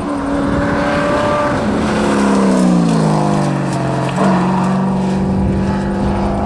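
Holden Commodore rally car engine at high revs as the car passes at speed, its note falling as it goes by. About four seconds in the note breaks abruptly and settles into a steady drone.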